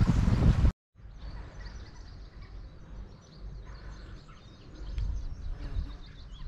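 A shallow stream running over stones cuts off abruptly within the first second. Then small birds chirp and sing over gusts of wind on the microphone.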